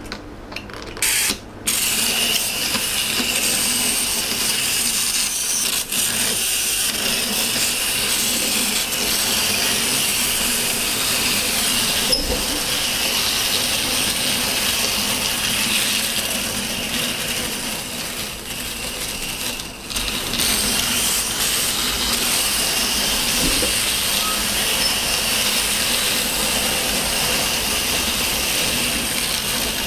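Several wind-up capsule Plarail Thomas toy trains running around a plastic track: a steady mechanical whir from their clockwork motors and wheels. A few sharp clicks come just before it, as they are set on the track.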